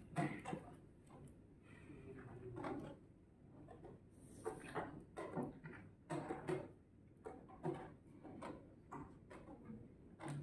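Room tone of a chess playing hall: scattered soft knocks and clicks at irregular intervals.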